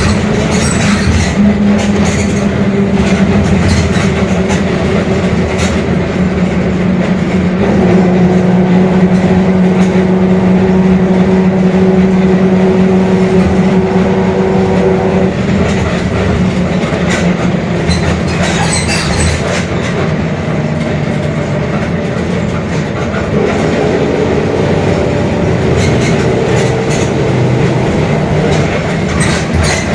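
Mercedes-Benz OF-1721 bus under way, its diesel running with a steady droning whine from the differential. The drone rises and grows louder about a quarter of the way in, fades around the middle, and comes back near the end, over a bed of body rattles.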